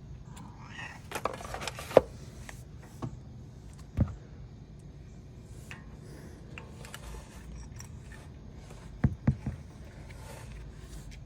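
Brake caliper hardware being handled and fitted: scattered sharp clicks and light scraping as the pad-retaining wires and pads are lined up. There is a sharp click about two seconds in, another about four seconds in, and a quick pair near the end.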